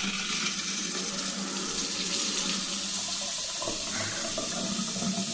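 Faucet running water into a newly installed lavatory sink, a steady flow.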